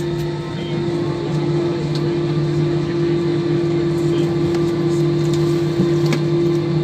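Steady cabin hum inside an Airbus jet airliner: engine and air-conditioning noise with two constant low tones under an even rush, plus a few faint clicks.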